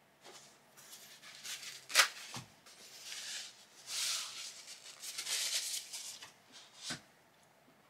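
Hands handling small extruder parts at the workbench: rustling, with a sharp click about two seconds in and another near the end.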